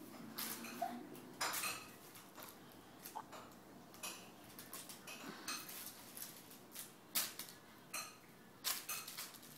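A Pomeranian puppy's claws clicking and scrabbling on a parquet floor as it runs, spins and pounces. The sound comes as irregular sharp clicks in short clusters.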